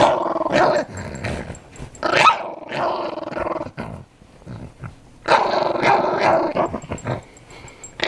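Dog growling from under a blanket in three bursts, the middle one sharper and rising in pitch.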